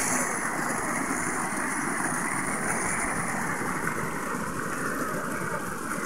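Small shallow stream running over stones and water plants, making a steady, even rushing noise close to the microphone.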